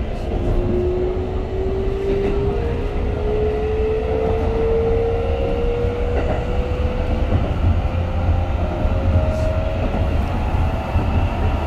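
Keikyu 1000-series electric train with Siemens inverter running, heard from inside the car: a steady rumble of wheels on rail, with a single whine rising slowly and evenly in pitch as the train gathers speed.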